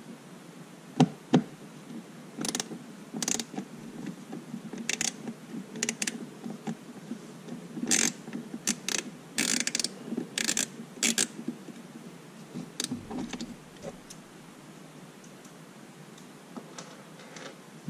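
Two sharp clicks about a second in, then irregular clicking and scraping of a screwdriver and plastic parts as a number 15 Torx screwdriver backs out the screws holding a watercraft's gauge. The handling noise dies down after about 11 seconds.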